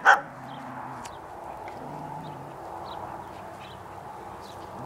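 A dog barks once right at the start, then a steady low background hum with a few faint, short bird chirps.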